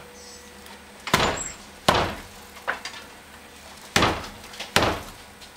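Feet thudding on wooden stair treads: five heavy thuds about a second apart, the middle one softer.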